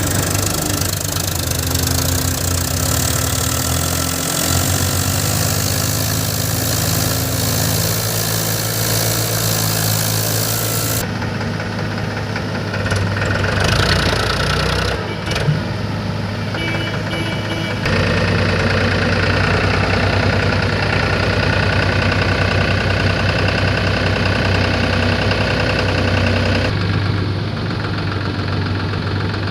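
Heavy diesel machinery engine running steadily, its sound changing abruptly a few times, with one short sharp knock about halfway through.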